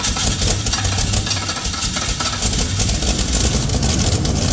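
Holden HQ car engine running steadily at idle, just after being started.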